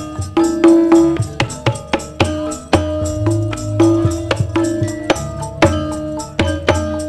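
Javanese gamelan playing tayub dance accompaniment: struck metal keys ring out over low kendang drum strokes, several strikes a second.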